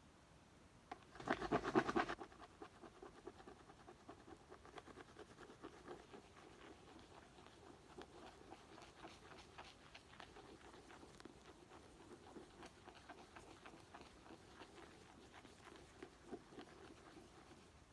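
Rapid scratching and tapping on a book. There is a loud flurry of fast strokes about a second in, then steady, lighter fast scratching.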